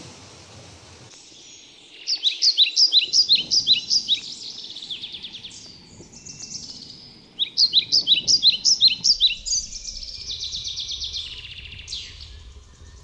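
A songbird singing: two fast runs of sharp, high notes about five seconds apart, the second followed by a softer trill.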